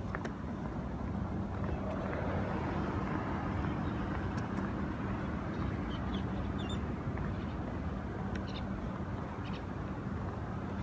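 A motor vehicle's engine hums steadily as outdoor noise swells and then eases over several seconds, like traffic passing. A few faint high chirps come in about two-thirds of the way through.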